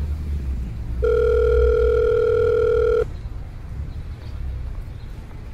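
Telephone ringback tone heard by the caller: one steady two-second ring beginning about a second in, as the line rings at the other end without being answered.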